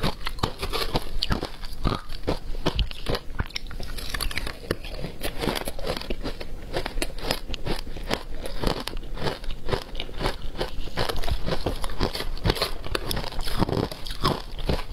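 Shaved ice mixed with matcha and milk powder being crunched and chewed right at the microphone: a rapid, unbroken run of crisp crunches.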